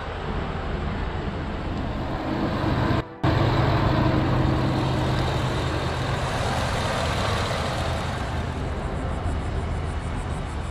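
Roush-supercharged 5.0 Coyote V8 of a Ford F-150 idling with a steady low hum. The sound drops out briefly about three seconds in, then comes back louder.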